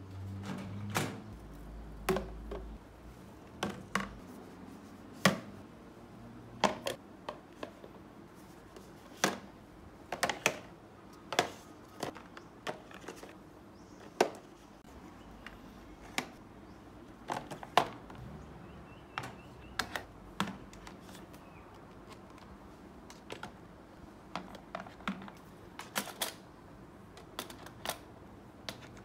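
Plastic toiletry bottles, jars and tubes being set down one at a time into a plastic tray and storage bin on a metal mesh cart shelf: irregular light clicks and knocks, about one or two a second with short pauses between.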